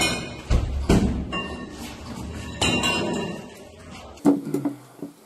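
Heavy blows and metallic clinks as a door is forced, under background music. One more sharp knock comes about four seconds in, and then the music drops away.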